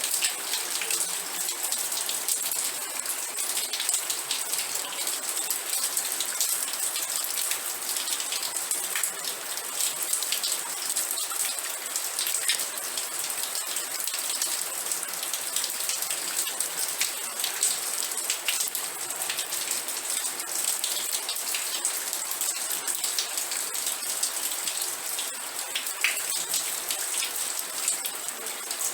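Steady rain falling, a dense hiss of many fine drop ticks with no let-up.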